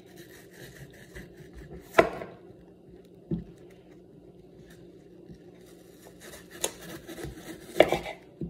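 Kitchen knife cutting through an apple, with a few sharp knocks of the blade and fruit against the counter, the loudest about two seconds in and another near the end.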